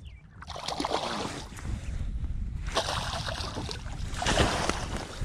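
Water splashing in two spells as a hooked smallmouth bass thrashes at the surface beside the boat while being landed.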